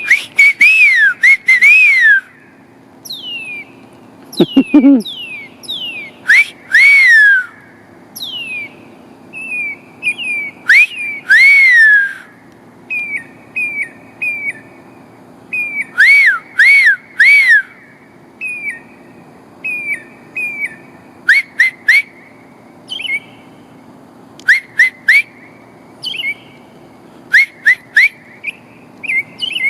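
Hand whistling through the fingers: loud rising-and-falling whistled notes in groups of two or three, every few seconds. In between, a northern mockingbird answers with shorter, quieter whistled notes and chirps, imitating the whistles.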